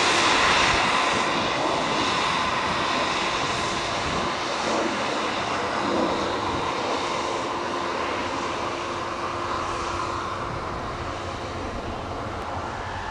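Snowdon Mountain Railway rack locomotive working, a steady mechanical drone that slowly fades.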